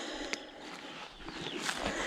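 Faint handling noise: one light click about a third of a second in, then soft rustling that swells near the end.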